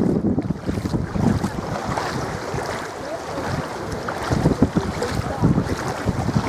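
Wind rumbling on the microphone over small waves lapping at a sandy shore, with faint voices of bathers in the later part.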